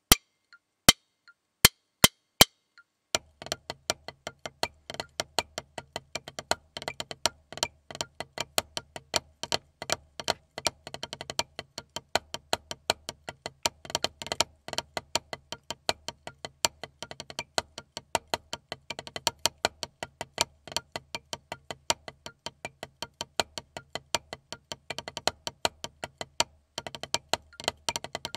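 Wooden drumsticks playing a rudimental snare drum solo on a rubber practice pad: a few separate strokes, then from about three seconds in a fast, continuous run of accented strokes and rolls.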